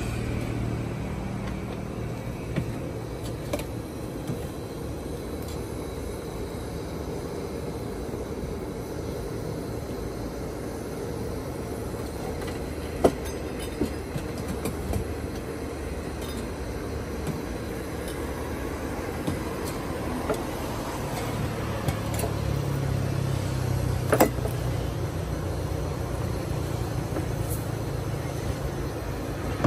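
Metal and ceramic coffee-making gear being handled at a coffee cart counter: scattered light clinks and knocks, with two sharper knocks, one about halfway through and one later on. A steady low rumble runs underneath.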